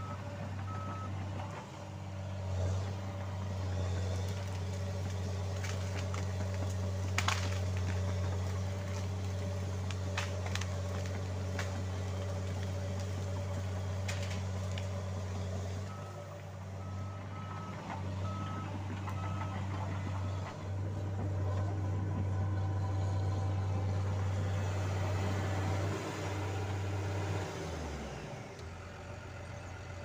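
John Deere 750J-II crawler dozer's diesel engine running steadily as it works, its reverse alarm beeping at the start and again about halfway through, with a few sharp knocks along the way. Near the end the engine winds down to idle.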